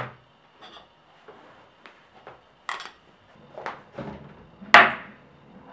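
Household items being handled and set down during kitchen cleaning: a series of irregular knocks and clatters, the loudest about five seconds in.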